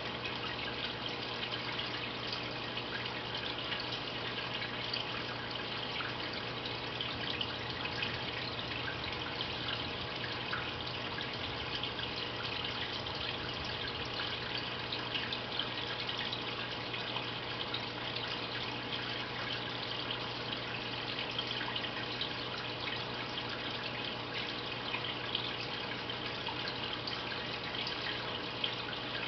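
Aquarium filter running: a steady trickle and splash of water with a low hum underneath.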